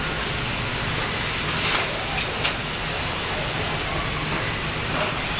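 Car body-shop machinery noise: a steady hum and hiss of robots and air-powered equipment, with a few short sharp hisses or clicks about two seconds in.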